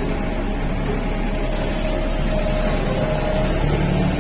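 An engine running steadily, a dull low hum with a faint thin whine over it.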